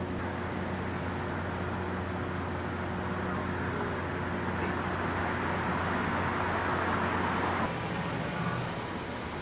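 Street sound: a vehicle engine idling with a steady low hum, under a rush of traffic noise that swells and then cuts off suddenly about eight seconds in.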